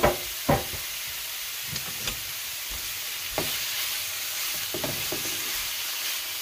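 Cubed beef sizzling steadily in hot olive oil in a nonstick frying pan, with a few short knocks as the meat is placed and stirred with a wooden spoon, the loudest two right at the start.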